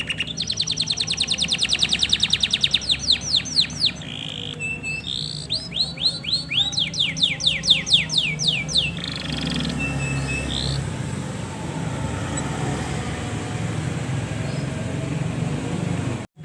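Male domestic canary singing: rapid rolling trills of quickly repeated high notes, then runs of sharp sweeping notes. The song stops about nine seconds in, leaving a steady hiss, which cuts out briefly near the end.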